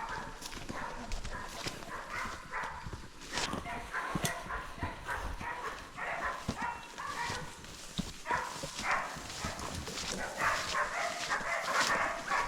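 Irregular footsteps and rustling of hunters and pig dogs moving on foot, with scattered knocks and scuffs.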